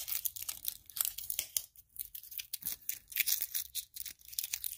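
Surprise toy egg's wrapper being torn open and crinkled by hand: a dense run of irregular crackles and rips.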